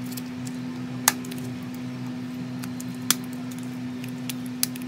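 Sharp light clicks of small tools and phone parts being handled on a hard work surface. The three loudest come about one, three and four and a half seconds in, with fainter ticks between, over a steady low hum.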